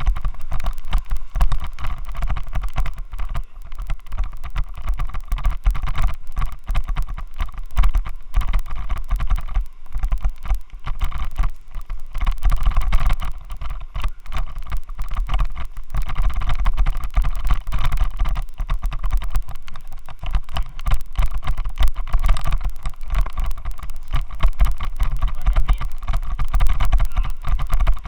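Continuous rapid rattling and buzzing picked up by a helmet-mounted Xiaomi Yi action camera, with a deep rumble beneath: the camera vibrating in a faulty helmet mount.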